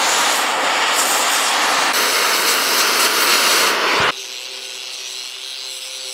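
Oxy-propane cutting torch hissing steadily as it cuts through a steel beam flange. About four seconds in it stops abruptly and an angle grinder runs with a steady whine, grinding the cut steel edge.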